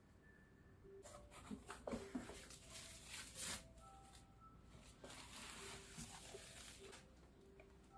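Quiet rustling and handling of cardboard and plastic packaging, in two soft swishing stretches with small clicks and taps.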